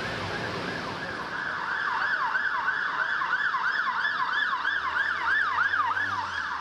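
Emergency vehicle siren on a rapid yelp, its pitch sweeping up and down about three times a second, growing louder about a second and a half in, over the steady noise of city street traffic.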